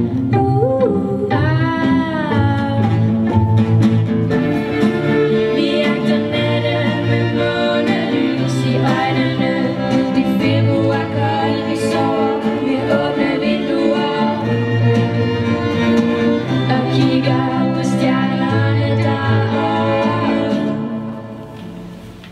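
Live band music with violins over guitar and a low bass line, and a singing voice. The music dies away near the end.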